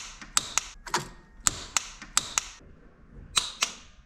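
Torque wrench tightening the T45 Torx bolts of a fuel injector rail to 19 Nm: a run of sharp metallic clicks, singly and in quick pairs, with a short pause before more clicks near the end.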